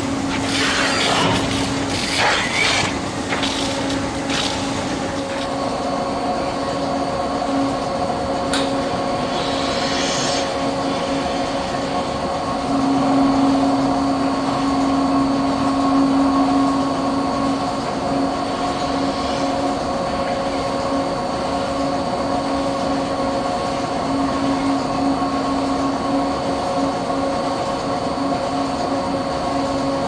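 Dairy milking machine running in the milking shed: a steady mechanical hum with several held tones, from the vacuum system and pulsators working the clusters. There is some rubbing and rustling in the first few seconds as the teat cups are handled.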